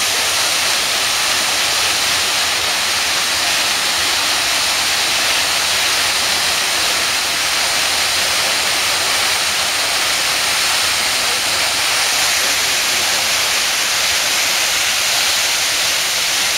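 Mountain waterfall pouring and splashing over rocks, heard close up as a loud, steady rush of water.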